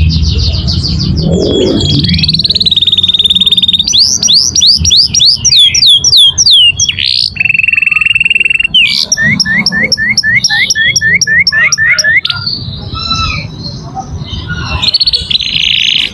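Domestic canary singing a long, varied song of fast trills, runs of rapidly repeated sweeping notes and held buzzy rolls, softer for a couple of seconds near the end. It is a young bird in full song.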